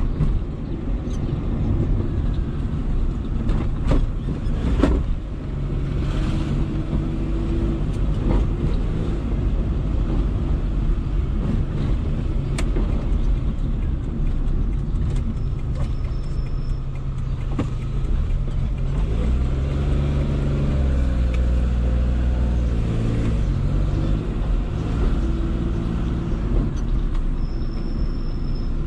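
A Suzuki Khyber's G10 three-cylinder petrol engine running at low speed, heard from inside the cabin with road and tyre noise. About two-thirds of the way through, its note rises and falls as the revs change.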